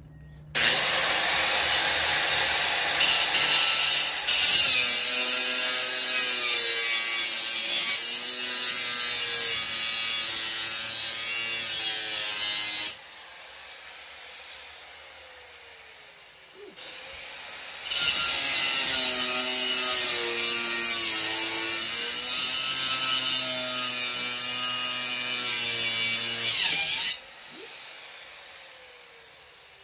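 Small angle grinder with a cutting disc cutting into a compressor's metal casing: two long cuts, the first stopping about thirteen seconds in and the second starting a few seconds later, with the motor's whine dipping and recovering as the disc bites. Between the cuts the grinder winds down with a falling whine.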